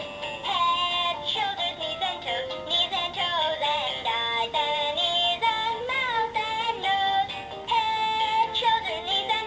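GUND Move With Me Monkey plush toy singing one of its built-in children's songs in a high-pitched voice over a music backing.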